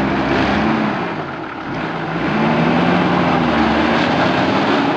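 Nissan Patrol 4x4's engine revving hard under load as it drives through deep mud, with its wheels churning the mud. The revs surge twice, briefly near the start and then for longer from about halfway.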